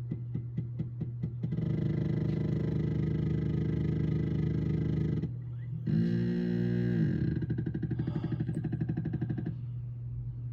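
Anycubic Photon M3 resin printer's Z-axis stepper motor: quick ticks, then a steady whine for several seconds, a shorter whine falling in pitch about six seconds in, then a fast buzzing pulse, over a constant low hum. The motor is driving but the build plate is not moving.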